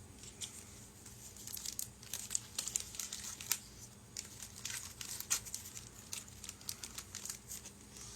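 Small plastic parts bags crinkling and rustling in the hands as bagged model-kit parts are sorted through, with irregular sharp crackles.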